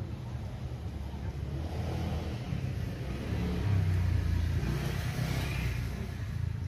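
Low rumble of a passing motor vehicle, swelling to its loudest about four seconds in and then fading.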